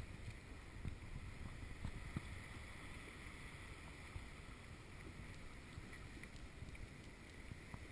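Faint water lapping and small splashes against a plastic kayak's hull, with light wind buffeting the microphone.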